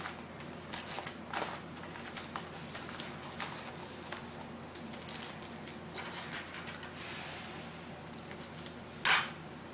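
Foil card wrappers crinkling and rustling in short bursts as packs of baseball cards are handled and slid out of a cardboard box. Near the end comes one louder sharp snip as scissors cut a foil pack open.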